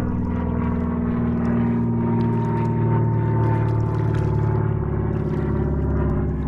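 A boat motor running steadily: a constant drone made of several even tones, with a fainter higher whine that rises a little around the middle.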